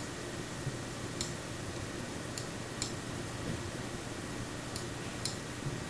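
Sharp computer mouse clicks, about five at uneven intervals, over a steady low hum of room tone.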